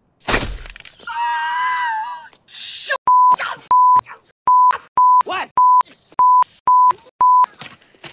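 A BB gun shot cracks right at the start, followed by a man's high-pitched yell of pain. From about three seconds in, a string of about eight short, loud censor bleeps on one steady tone covers his groaning curses.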